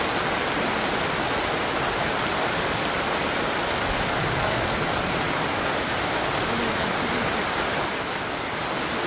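Heavy rain falling steadily, heard from inside a tent as an even hiss.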